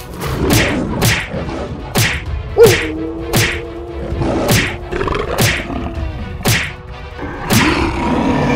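Cartoon fight sound effects: a string of whip-like swishing strikes and thuds, about one a second.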